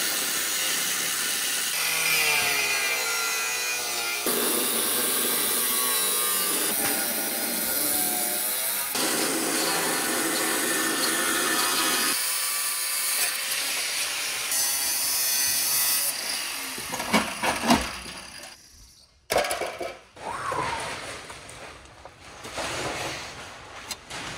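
Angle grinder cutting through the steel rear body and frame of a car in several stretches, its pitch sagging and rising under load. From about 16 seconds in the cutting stops and only scattered, quieter metal knocks and clanks remain.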